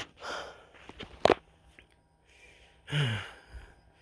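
Footsteps scuffing on a dirt hiking trail, with a sharp click about a second in. Near the end comes a short voiced sigh or exhale that falls in pitch.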